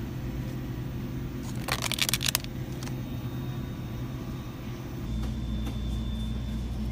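Steady low hum of a supermarket's refrigerated display cases, with a brief rattle about two seconds in. The low hum grows louder about five seconds in.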